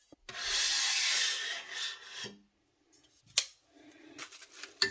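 A rubbing scrape lasting about two seconds, then a sharp click about a second later and another near the end.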